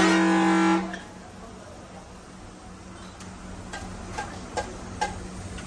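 A long, loud multi-tone vehicle horn blast that cuts off about a second in, followed by a low steady hum and a few light, sharp clicks from the griddle.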